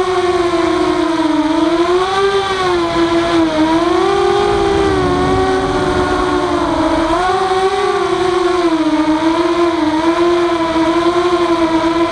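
Walkera F210 racing quadcopter's brushless motors and propellers whining in flight, heard up close from the aircraft itself; the pitch rises and falls with the throttle and briefly splits into two close tones near the middle as the motors run at different speeds.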